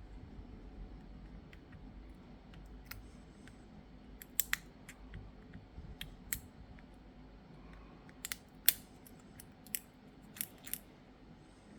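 Small sharp clicks and snaps at irregular intervals, a dozen or so, from flex-cable connectors being popped off a smartphone motherboard with a pry tool; the loudest snap comes about three quarters of the way through.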